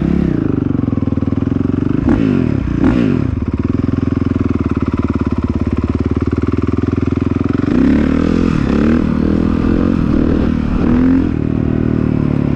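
Single-cylinder four-stroke dirt bike engine idling, blipped twice about two seconds in, then pulling away about eight seconds in with the revs rising and falling before settling to a steady run.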